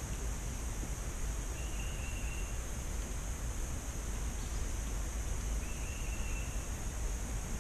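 Steady outdoor lake ambience: a low rumble under an even high hiss, with two faint, short high chirps about four seconds apart.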